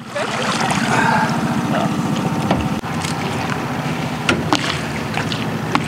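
Small outboard motor on an inflatable dinghy running steadily at idle.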